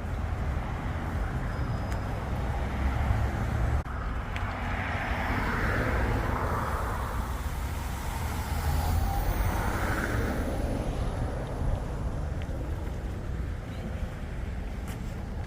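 Water taxi under way: a steady low engine drone with a rushing hiss over it.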